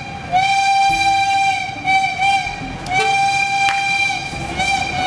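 Bus air horn sounding one steady high note in a rhythm of long blasts broken by short dips, over low street traffic noise.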